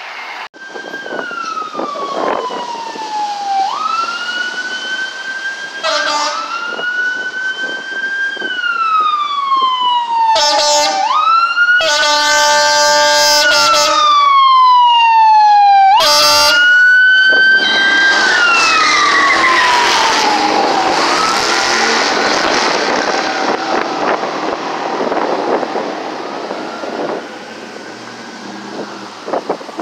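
Fire engine running with its siren on: a wail that rises quickly and winds down slowly, over and over, broken by several blasts of the air horn, the longest about two seconds. Then the truck goes by loudly and fades as it drives away, the siren still sounding.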